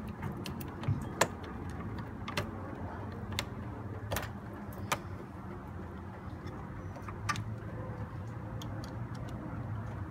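Ratchet wrench clicking and metal clinks as a car battery's terminal clamp is loosened and taken off to disconnect the battery. The clicks are sharp and irregular, the loudest about a second in, over a steady low hum.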